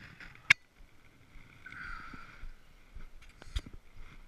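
Handling noises as a small bass is landed and lifted by gloved hands: a sharp knock about half a second in, then faint rustling and a quick cluster of clicks about three and a half seconds in.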